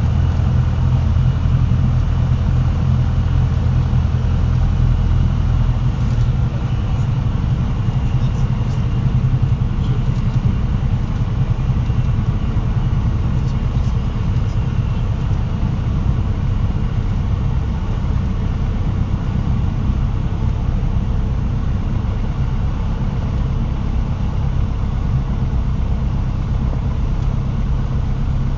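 Cessna 150's Continental O-200 four-cylinder engine and propeller droning steadily, with the low note shifting slightly about six seconds in.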